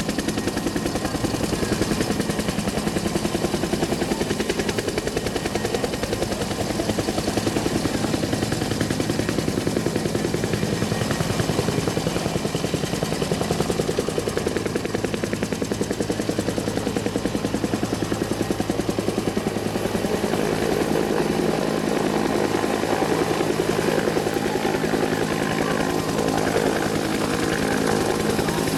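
Bell UH-1 Huey helicopter's two-blade main rotor beating in a rapid, even blade slap as it hovers and then flies off.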